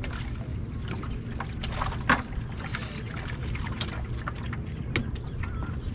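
Steady low rumble of wind buffeting the microphone, with scattered clicks and knocks; the loudest is a sharp clack about two seconds in.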